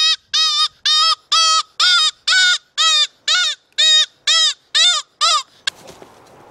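Hand-blown fox whistle (predator call) sounded in an even series of short, loud squeals, about two a second, a distress-cry imitation meant to lure foxes in. The calling stops about five and a half seconds in.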